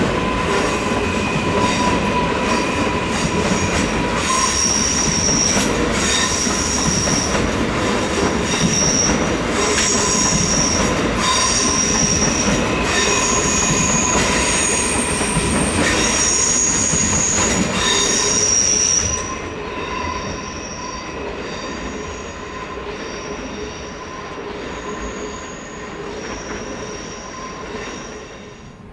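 SBB RABe 501 Giruno electric train rolling slowly through curves and points, its wheels squealing in several high, shifting tones over a steady rumble. About nineteen seconds in the sound drops to a quieter, more distant squeal.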